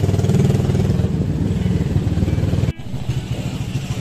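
Small motorcycle engine running steadily with a rapid low pulse. It breaks off abruptly near the end, and a similar engine sound carries on after the break.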